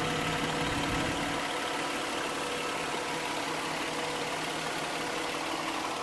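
2001 Toyota Sienna's 3.0-litre V6 engine idling steadily.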